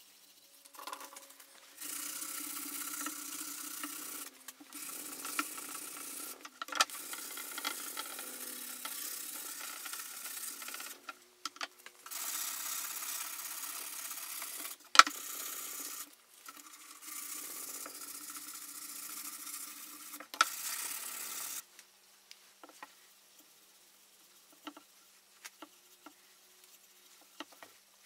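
Sanding of old, weathered, cracked wood: a sanding pad rasping over the surface in about five passes of a few seconds each, with short pauses between. A sharp click about halfway through, and only a few faint ticks after the sanding stops near the end.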